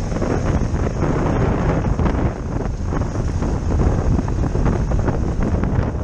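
Wind buffeting the microphone over a Honda Africa Twin's parallel-twin engine running as it rides a dirt track, with frequent small knocks throughout.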